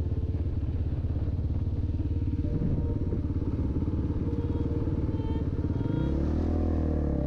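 Motorcycle engine running steadily on the move, its firing pulses heard as an even buzz. The engine note changes about six seconds in.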